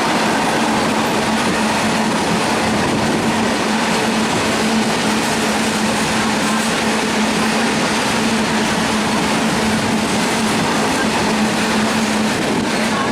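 Freight train wagons rolling past on the track: a steady loud noise of wheels on rail, with a steady hum underneath that cuts out near the end.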